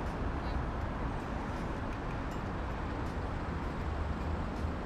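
Steady city street traffic noise: cars on a wide road making a continuous low rumble, with no single event standing out.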